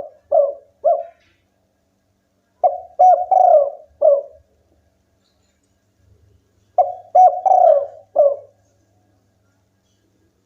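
Spotted dove cooing. A phrase ends near the start, then two full phrases of four or five low coos each follow about four seconds apart, with silence between.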